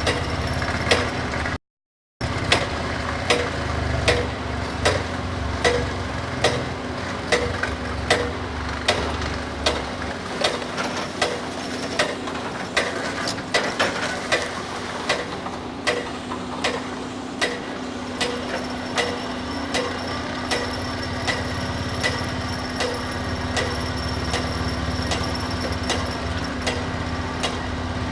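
SEKO SVR600 excavator-mounted vibration ripper working rock, a sharp knock about twice a second over the steady drone of the excavator. The sound cuts out briefly about two seconds in.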